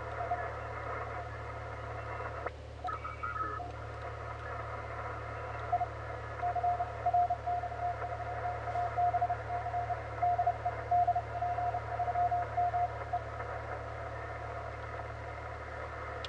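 HF ham transceiver's receiver hiss as the band is tuned, with a Morse code (CW) signal keying on and off at one steady pitch from about 6 to 13 seconds in.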